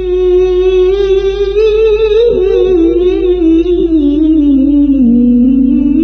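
A high voice chanting Quran recitation (tilawah) in long, ornamented held notes. The melody wavers and then slides slowly downward, reaching its lowest note about five seconds in.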